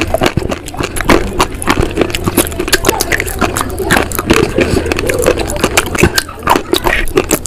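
Close-miked chewing of slate and white shale pieces: a rapid, irregular run of crisp crunches as the brittle stone breaks between the teeth.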